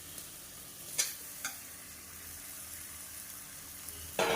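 Masala sizzling in hot oil in a pressure cooker pan, a steady frying hiss as the chicken goes in and is stirred, with two sharp clicks of the spoon against the pot about a second in and half a second later. A louder burst of stirring and sizzling starts near the end.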